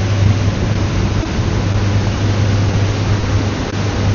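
The twin motors of a 44 ft Aquila yacht running steadily at cruising speed, a constant low drone under an even rush of wind and water noise.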